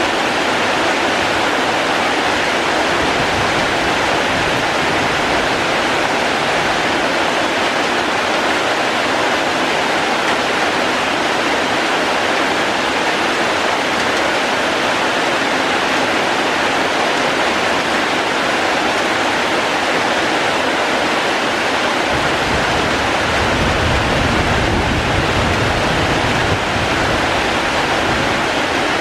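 Falling water rushing steadily, an even hiss with no breaks; a low rumble joins about three-quarters of the way through.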